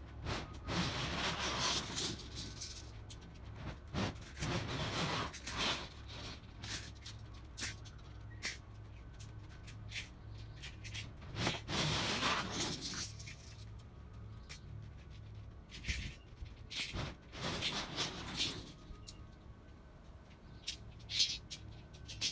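Polyethylene vapour-barrier sheeting crinkling in several swells of a second or two as it is pulled and spread over the slab pad, with scattered sharp clicks and a steady low hum underneath.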